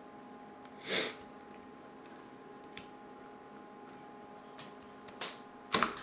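Quiet handling of an iPod Video's small hard drive and metal case: a few light clicks and taps, a short breathy sniff about a second in, and a sharper, louder noise near the end, over a steady electrical hum.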